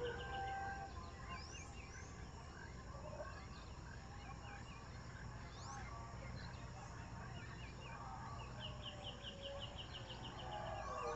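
Tropical forest birds calling: quick runs of repeated notes and short rising whistles over a steady background hum. The howler monkeys' howling dies away at the start and begins building again near the end.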